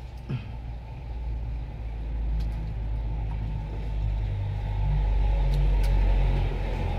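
Low rumble that swells from about two seconds in and is loudest near the end, with a few faint ticks of water splashing off a hand net.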